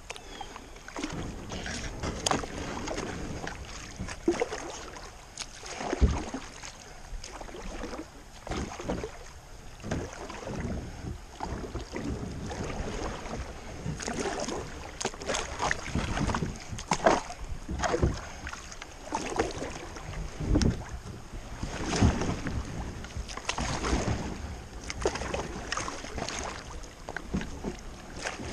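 Kayak being paddled on a river: irregular splashes from the paddle blades dipping into the water, over the steady wash of water along the hull.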